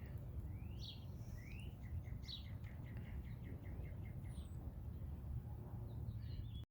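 Small birds calling: a few quick rising chirps, then a fast run of short repeated notes, about five a second, and a thin high whistle, over a steady low hum. The sound cuts off abruptly near the end.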